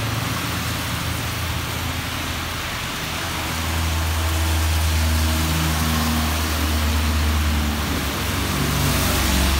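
Rain hissing steadily on a wet street, with motorbike traffic. The low engine hum of a passing motorbike swells about three and a half seconds in and fades near the end.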